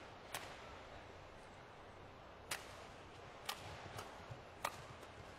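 Badminton rackets striking a shuttlecock during a rally: five sharp cracks, the first two about two seconds apart, the later ones coming faster, under a faint arena background.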